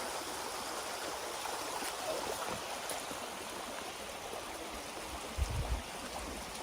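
Steady rush of a stream tumbling over rocks at a small waterfall, with a brief low thump about five and a half seconds in.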